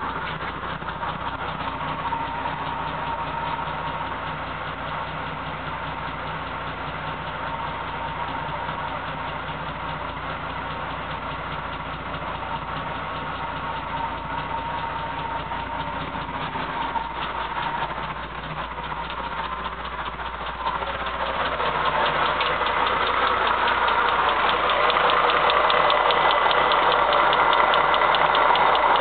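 Audi A8's W12 engine idling with a steady knock, the knock being the fault the owner is showing. About two-thirds of the way through it grows louder, the ticking more prominent.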